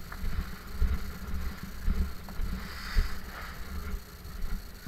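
Irregular low thumps and rustling as a paraglider wing and its lines are handled and gathered up on the ground. There is no engine running.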